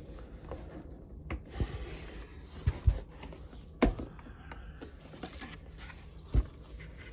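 Plastic collectibles being handled and set on a plastic turntable: a few short, light knocks and bumps with soft rustling between, the loudest knock about four seconds in and another near the end.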